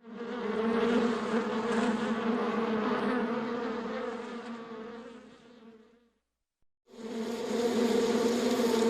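Bees in a hive buzzing, a dense steady hum. It fades away about two-thirds of the way through, breaks off into a short silence, then starts again abruptly.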